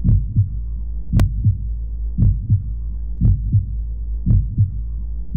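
Film heartbeat sound effect: slow paired thumps, about one beat a second, over a steady low hum.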